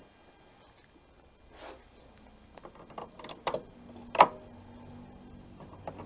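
Scattered sharp clicks and knocks of plastic engine parts and a screwdriver being handled on a small Briggs & Stratton mower engine during reassembly, the loudest just after four seconds in. A faint steady hum runs underneath from about two seconds in.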